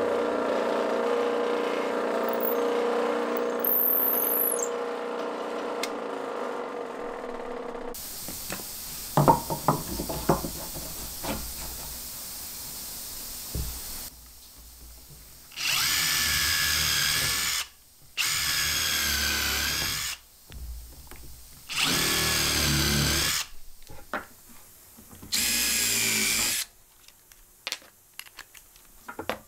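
A steady hum for the first several seconds, then a few knocks of wood being handled. After that, a power drill bores into hardwood in four separate bursts of about two seconds each, each one a loud, high, wavering whine.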